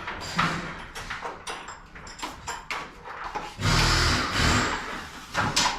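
Clicks and knocks of work on garage door hardware, with a rolling rumble about a second long roughly two-thirds of the way in.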